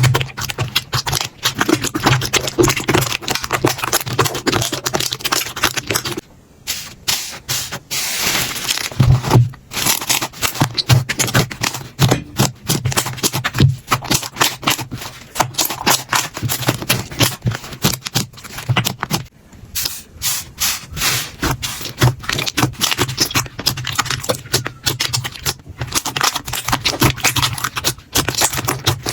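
Slime being pressed, squeezed and pulled by hand, giving a dense run of crackling and clicking pops with a few short gaps.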